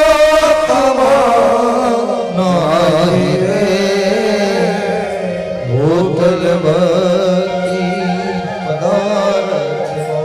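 Devotional bhajan singing: a male voice draws out a long, wavering melismatic phrase with no clear words over a steady instrumental drone, sliding upward about six seconds in.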